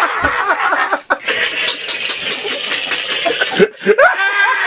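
A man laughing hysterically and loudly in an edited-in meme clip, with rising squealing whoops near the end.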